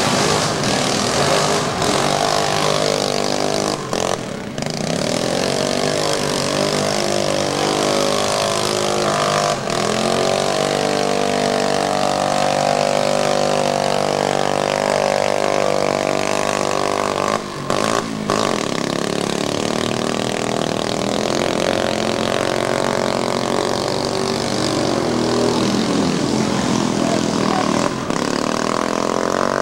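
Quad (ATV) engines revving hard, their pitch rising and falling again and again as the four-wheelers churn through the mud pit. The sound briefly cuts out twice.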